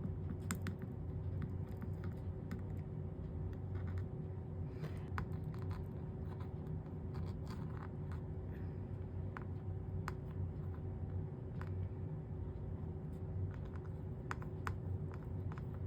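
Flux crackling and popping under a hot soldering iron as 60/40 solder is run along the copper-foiled seams of stained glass: scattered irregular clicks and spits, over a steady low hum.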